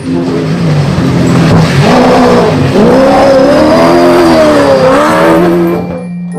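Race car engine revving, its pitch rising and falling several times over a loud rushing noise, then fading near the end.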